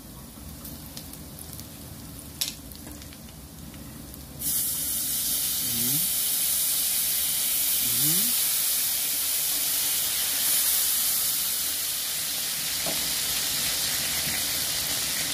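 Beef and garlic frying softly in a pan, then a sudden loud sizzle about four seconds in as Worcestershire sauce hits the hot pan. The sizzling then holds steady as the meat is stirred with a wooden spoon.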